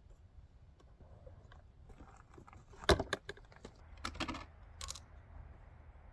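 A sharp crack about three seconds in, followed by a scatter of small metallic clicks and rattles from firearms and gear being handled at a shooting bench.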